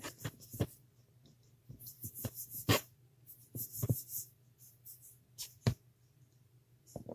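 Hands working polymer clay with sculpting tools on a worktable: scattered light taps and clicks, with short scraping hisses between about two and four seconds in.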